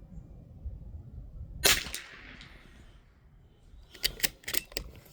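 A single shot from a bolt-action Ruger American Long Range Target .22 LR rifle firing CCI Standard ammunition, a sharp crack with a short fading echo. About two seconds later the bolt is worked in a quick run of four or five metallic clicks, chambering the next round.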